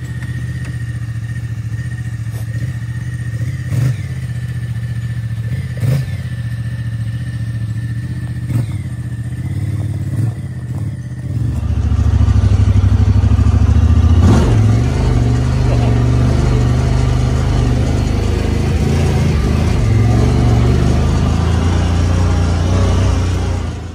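Honda Talon side-by-side's parallel-twin engine running as it drives, with a few sharp knocks in the first half. About halfway through the engine grows louder and fuller under more throttle.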